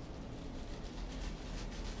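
Black plastic garbage bag rustling and crinkling in irregular bursts as it is pulled and adjusted on the body, over a low steady hum.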